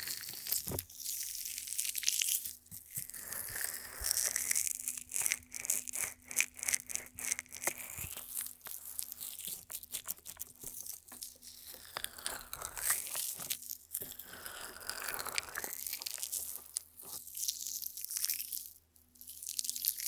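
Close-up ASMR sounds at a binaural dummy-head microphone's ear: dense crackling and clicking with rubbing, sweeping hiss, with no break.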